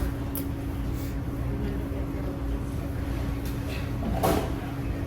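Steady low rumble with a constant hum, with a faint click about half a second in and a brief voice-like sound a little after four seconds.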